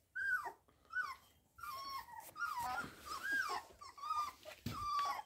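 Three-week-old Groenendael puppies whining and squealing: a string of about seven short, high cries that rise and fall in pitch.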